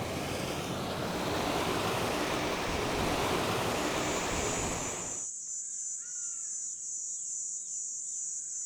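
Water rushing noisily at an old dam, a steady wash of noise that cuts off abruptly about five seconds in. After that, a high steady insect trill with a few short falling bird chirps.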